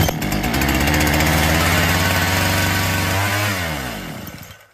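Falcon 73cc two-stroke chainsaw engine catching and running for about three seconds, then slowing and dying near the end. This is the fault shown: the saw starts and then shuts off on its own, which the mechanic puts down to poor petrol supply from the fuel filter or the carburettor.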